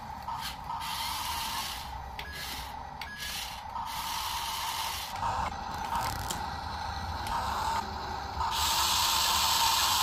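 Small electric motors and plastic gearboxes of toy RC construction vehicles whirring in spurts over a steady whine. The loudest run comes near the end.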